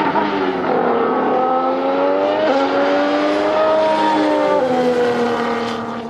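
Red Bull 2019 Formula 1 car's Honda 1.6-litre turbocharged V6 hybrid engine accelerating out of a corner: the note dips briefly, then climbs through the gears with two quick upshifts, about two and a half and four and a half seconds in. It fades near the end as the car pulls away.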